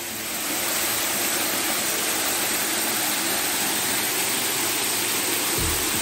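Steady rushing of a waterfall pouring over a rock wall onto the rocks below, swelling slightly about half a second in and then holding even. A low thump near the end.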